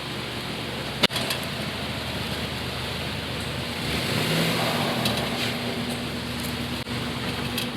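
BMW 428i's 2.0-litre turbocharged four-cylinder running while the car is driven slowly through parking and turning manoeuvres, with one sharp click about a second in.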